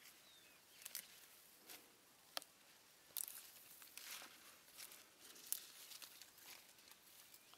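Faint scattered snaps and rustles of leafy vine stems being picked by hand, leaves crinkling as they are pulled, with the sharpest snaps a little past three seconds in and around five and a half seconds.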